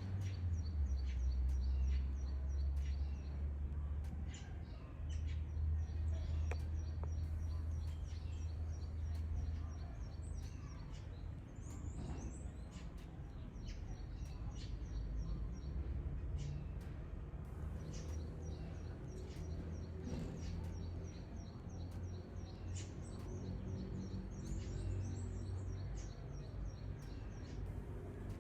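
Small birds chirping, with series of short, high, rapidly repeated notes coming again and again throughout, over a low rumble that is strongest in the first ten seconds.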